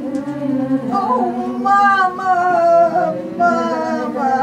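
Singing, without words the recogniser could catch, in long held notes that bend slightly in pitch.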